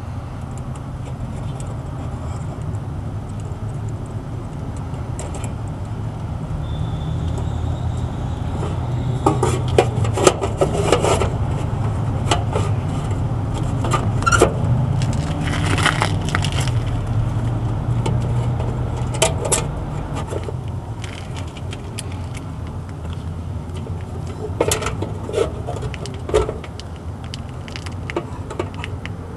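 Scattered clicks and rattles of hands handling a replacement air-conditioner capacitor and pushing its wire leads onto the terminals inside a metal electrical panel, in clusters about a third of the way in, near the middle and again near the end. A steady low hum runs underneath throughout.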